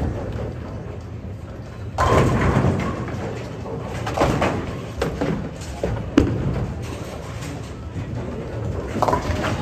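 Bowling alley lane sounds: a sudden crash of pins about two seconds in, clattering away, then more sharp knocks and clatter every second or so over a steady rumble of the hall.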